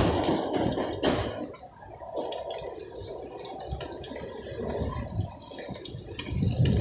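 Bicycle tyres rolling fast over wet pavement, a steady watery hiss and splash of spray.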